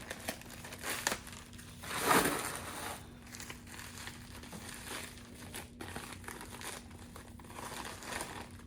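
Mail packaging crinkling and rustling as it is handled and opened, in irregular bursts, loudest about two seconds in.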